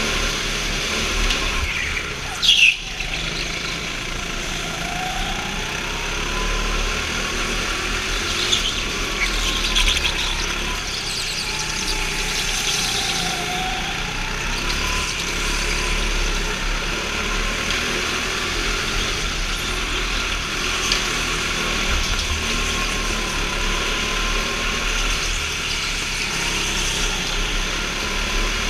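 Go-kart engine running under the driver, its pitch rising and falling in slow swells as the kart accelerates out of and slows into corners, with other karts running close by. A brief loud knock about two and a half seconds in.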